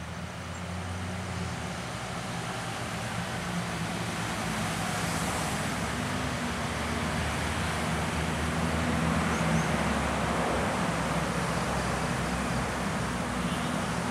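Steady road traffic noise with a low engine hum, swelling over the first few seconds and then holding steady.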